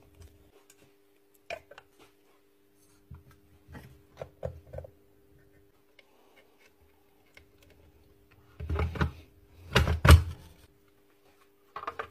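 Clicks, taps and knocks of plastic and metal parts being handled and fitted as a Makita DBN600 cordless nailer is put back together after regreasing, with two louder thumps near the end as the housing goes together. A faint steady hum runs underneath.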